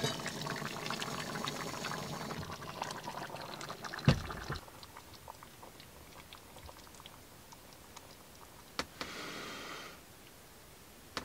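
A stew bubbling and crackling in a steaming pot on a gas burner, fading after a few seconds. A single loud knock comes about four seconds in, and a click and a brief soft hiss near the end.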